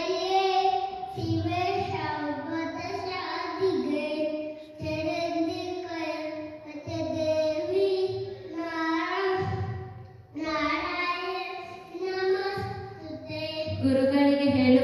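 A young boy chanting a shloka in a sing-song melody, in short held phrases with brief pauses between them.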